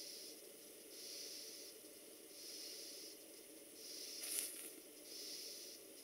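Homemade ball-type safety valve on a model steam boiler breathing: faint, even puffs of hissing steam about once every second and a half, one a little stronger a bit past four seconds in, while the boiler pressure rises through about 50 psi.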